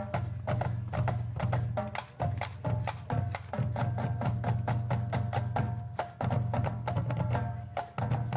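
Marching band drumline playing a cadence: rapid, crisp stick clicks and drum strokes over a steady low drum rumble.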